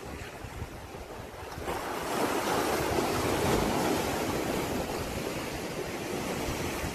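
Wind rushing over the microphone on top of the wash of the sea, growing louder about two seconds in.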